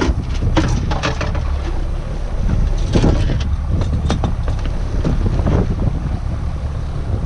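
Wind buffeting the microphone on a small boat in rough seas, a heavy uneven rumble, with scattered splashes and knocks.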